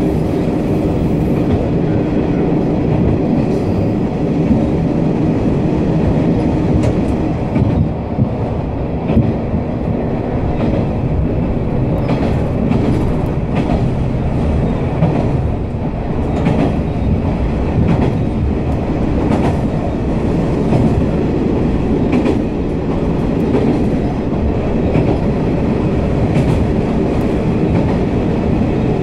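Noto Railway NT200 diesel railcar running along the line, heard on board: a steady diesel engine drone over rolling wheel noise, with scattered clicks as the wheels cross rail joints.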